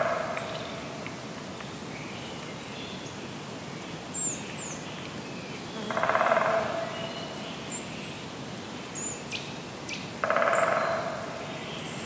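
Woodpecker drumming in two short bursts of rapid taps, each about a second long, one midway and one near the end, with the tail of another at the start. Between the bursts are small high bird chirps.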